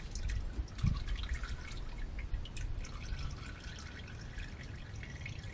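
Used diesel engine oil dripping and splashing from the drain hole of a Ram EcoDiesel 3.0L V6's aluminum oil pan into a plastic drain pan. The drips come thickest in the first couple of seconds. This is oil still draining down from the cylinder heads and valve train, so the pan has not finished emptying.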